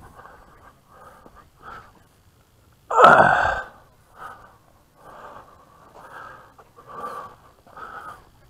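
A person breathing hard close to the microphone, in short puffs about one every half second to a second, with one loud gasping breath about three seconds in.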